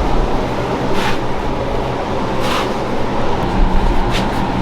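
Short hissing squirts from a hand spray bottle, about four of them, the first two longer, misting solution onto the tail lights. Under them runs a steady background rumble.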